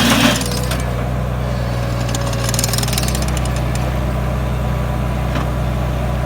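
Terex PT-30 compact track loader's 30 hp diesel engine running steadily. It drops to a lower, quieter level just after the start and then holds there, with a few faint clicks.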